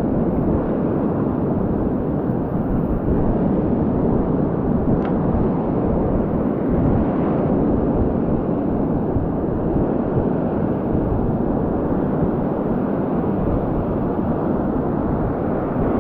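Steady rushing noise of breaking surf and foaming whitewater, with wind buffeting the microphone.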